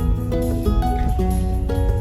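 Background music with plucked acoustic guitar over a steady bass line.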